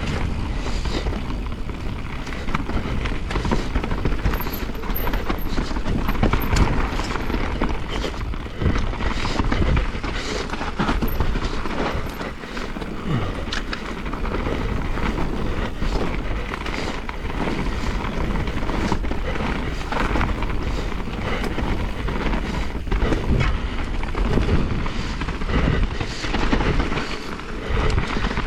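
Mountain bike riding a dirt trail: a constant rumble of tyres and wind on the microphone, with many quick clacks and rattles from the bike over bumps.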